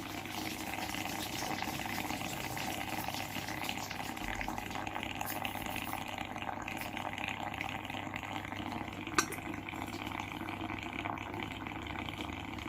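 Small electric steam inhaler vaporizer running, its heater boiling the water with a steady rush of steam. A single sharp click about nine seconds in.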